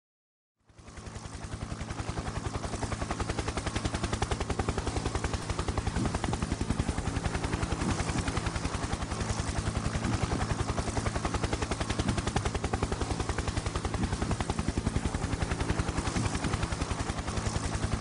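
Helicopter rotor blades chopping in a rapid, even beat over a steady engine tone. It fades in just after the start.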